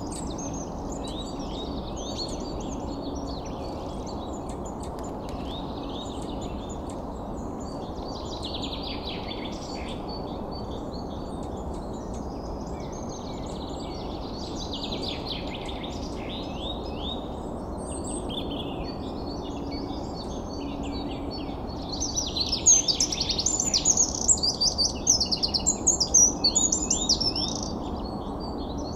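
Birds chirping and singing over a steady background hiss, with a louder stretch of rapid, busy chirping in the last third.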